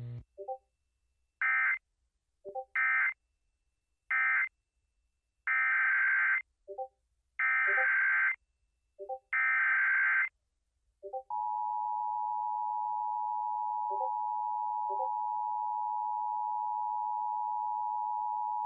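NOAA Weather Radio alert sequence: three short SAME end-of-message data bursts closing the previous warning, then three longer SAME header data bursts announcing a new tornado warning. About eleven seconds in, the steady 1050 Hz Weather Radio warning alarm tone begins.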